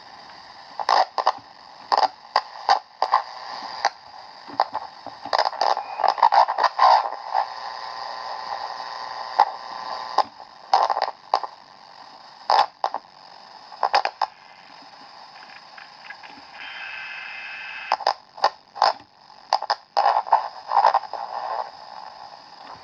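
Static hiss and irregular crackling pops from a Candle pocket transistor radio's speaker. The repairer traces this noise to the radio's converter or oscillator stage.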